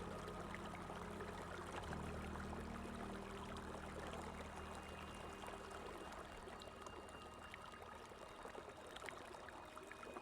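Running water flowing steadily, an even rushing and trickling. Soft, low held music notes sound under it and fade out about two-thirds of the way through.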